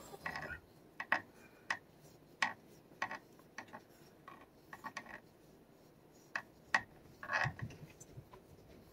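Light, irregular clicks, about a dozen, with a short rub near the end, from a plastic back scratcher being worked over a cat's fur and knocking against the wire of its cage.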